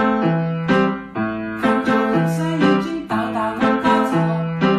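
Background music: a keyboard melody over bass notes, a new note about every half second.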